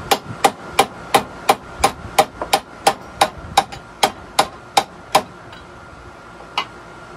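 Hammer blows on metal, about three strikes a second, each with a short ring. They stop a little after five seconds, and one last blow comes near the end.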